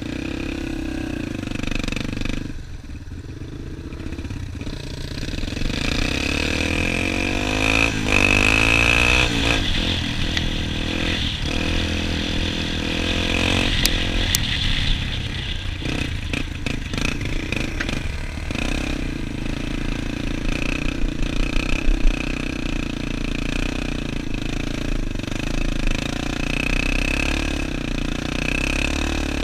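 Dirt bike engine running as it is ridden, its pitch rising and falling as the rider revs and shifts. About 20 seconds in comes a spell of quick, loud pulses.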